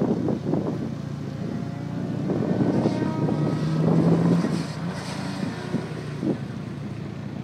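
Nissan S13 Silvia engine revving as the car drives a cone course. The revs climb for a couple of seconds, then ease off about halfway through.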